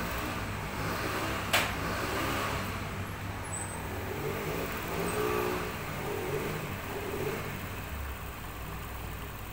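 Industrial overlock sewing machine's motor humming steadily while it idles, with one sharp click about a second and a half in.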